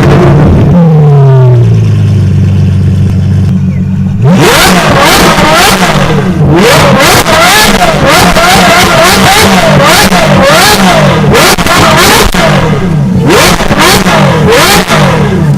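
A car engine revved hard again and again, its pitch swinging up and down quickly, with sharp cracks through it. In the first seconds the revs fall and settle, then climb steeply about four seconds in.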